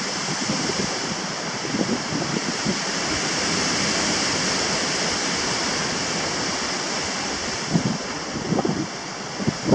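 Strong wind blowing over the camera's microphone: a steady rushing hiss with low, uneven buffeting, a little heavier near the end.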